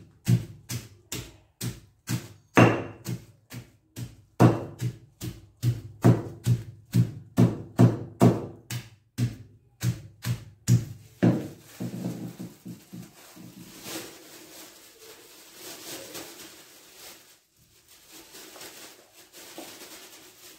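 Garlic cloves being pounded inside a plastic bag on a table, a steady run of thuds about two a second, crushing the cloves to crack their skins for drying. About halfway through the pounding stops and gives way to softer rustling and scraping of the plastic bag and crushed garlic being handled.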